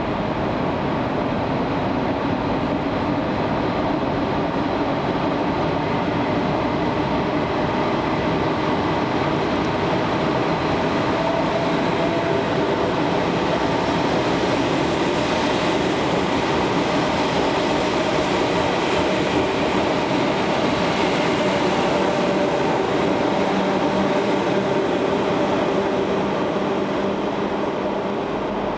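An elektrichka-type electric multiple unit runs along the platform of an underground station, with wheel noise and a steady hum of motors. The noise swells as the train passes close, loudest a little past the middle, and then eases off as it moves away.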